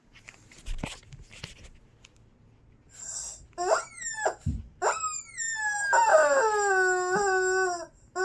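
Squeaky dog toy being squeezed: a few light handling knocks, then short squeaks that rise in pitch, and about six seconds in a long squeak that slowly falls in pitch.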